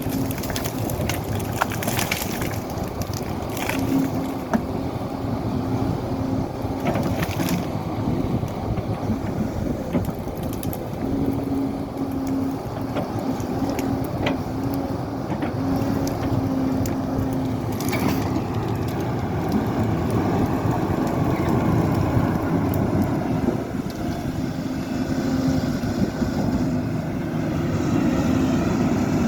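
Excavator working: its engine runs steadily with a tone that comes and goes as the hydraulics work, and there are sharp cracks and crunches of material being broken or scooped a few times, most near the start.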